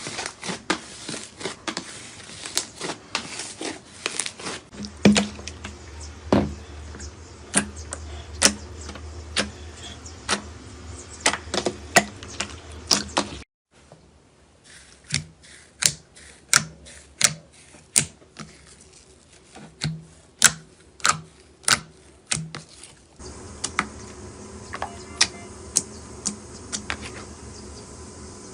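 Slime being poked, pressed and stretched by hand, giving a quick, irregular run of sharp sticky pops and clicks, in several short clips with a brief break about halfway through.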